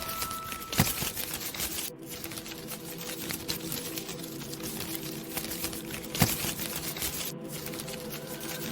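Dense, rapid clicking and rattling, with two sharp louder knocks, one about a second in and one about six seconds in, over faint steady tones.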